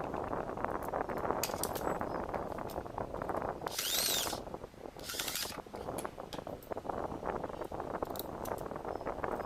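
Homemade drill press running and drilling, a steady rattling whir with many small clicks. Two short high-pitched bursts come about four and five seconds in.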